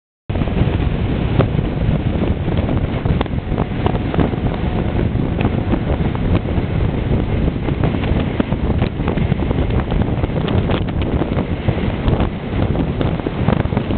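Heavy wind buffeting the microphone of a camera moving at road speed on an open vehicle: a steady, loud low rumble with constant crackling and no clear engine note.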